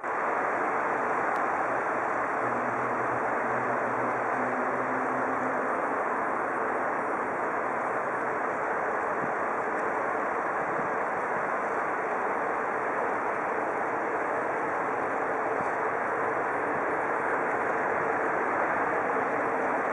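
Train or locomotive running steadily: a constant noise with a low hum that fades after about eight seconds over a steady tone.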